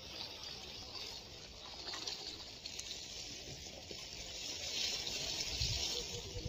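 Sea water washing and splashing against a concrete breakwater and its rocks, a steady rushing that swells louder about five seconds in, with a few low thumps near the end.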